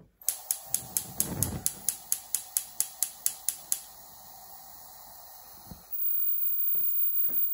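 Gas hob's spark igniter clicking rapidly, about four to five clicks a second, for some three and a half seconds while the knob is held in, until the burner lights. The lit gas burner then hisses steadily, louder from about six seconds in.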